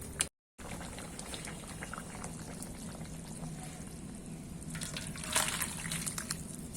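Fish curry bubbling as it simmers in a pan, with scattered small pops and a denser flurry of crackles about five seconds in. The sound drops out for a split second near the start.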